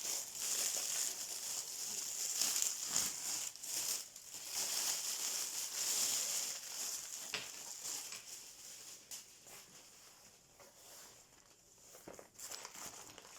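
Plastic packaging crinkling and rustling as it is handled during unpacking, busiest in the first half and dying away near the end.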